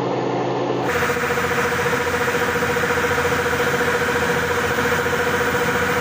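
Yanmar YH850 combine harvester running steadily while its unloading auger discharges rice grain through the boom. A steady hum rides over the machine noise from about a second in.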